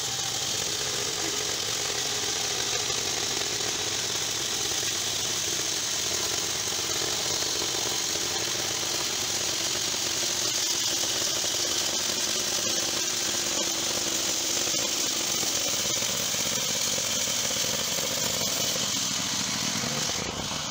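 Small petrol engine of a portable band sawmill running at high speed as the band blade saws lengthwise through a squared log: a steady engine drone under a loud sawing hiss. The sound drops off near the end.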